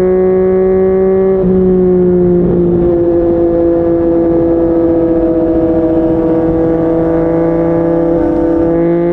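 Yamaha MT-09's three-cylinder engine running through a Yoshimura R55 slip-on exhaust at highway speed: a steady high engine note that steps slightly lower about a second and a half in, eases gradually lower, then starts rising again near the end.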